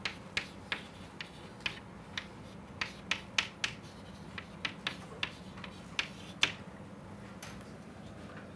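Chalk tapping and clicking against a blackboard while equations are written: a rapid, irregular run of sharp clicks that stops after about six and a half seconds.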